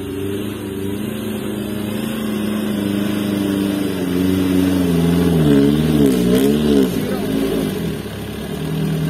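Loaded diesel dump truck's engine labouring as the truck crawls through deep ruts and mud. Its note sags slowly, then surges up and down several times in quick succession about five seconds in.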